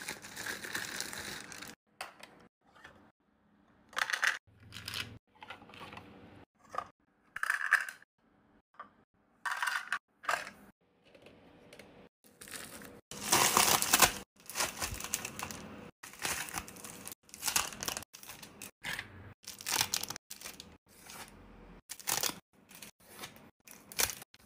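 Packaging being opened by hand: irregular tearing, crinkling and rustling in short bursts, with scattered clicks, the longest tear about halfway through.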